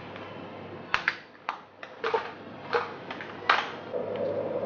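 A series of about six sharp taps or clicks, roughly half a second apart. About four seconds in, a steady hum starts.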